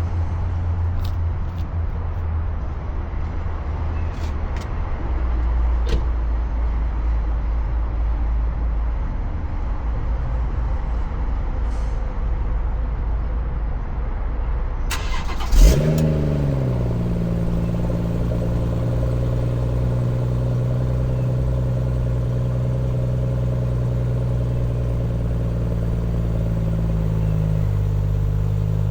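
BMW M140i's turbocharged straight-six starting about halfway through: a brief rev flare that falls and settles into a steady idle. Before the start there is a steady low rumble.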